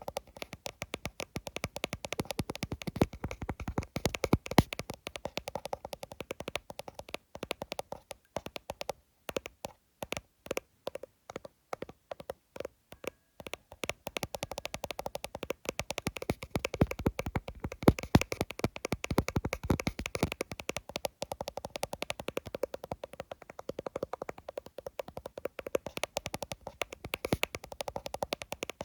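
Fingers tapping fast on an iPhone, many quick taps a second, slowing to sparser, spaced taps for a few seconds near the middle before speeding up again.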